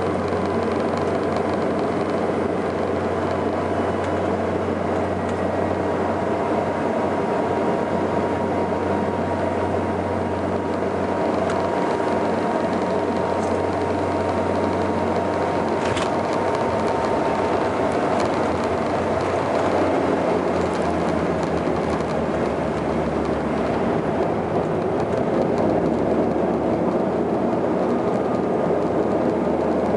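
Cabin noise of a Saab 340B: the steady drone of its twin General Electric CT7 turboprops and propellers on short final. About halfway through a single sharp knock comes as the wheels meet the runway, and the engine note then changes as the aircraft rolls out.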